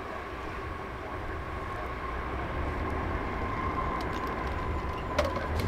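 Boeing 747-400ERF freighter's jet engines rumbling with a steady whine as it rolls out just after touchdown, growing gradually louder. A few sharp clicks near the end.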